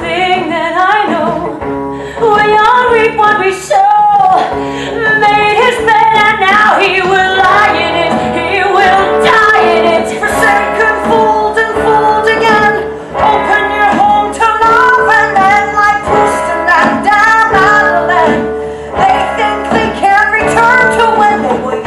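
A woman singing with a live band in a stage musical, heard from the audience in a theatre.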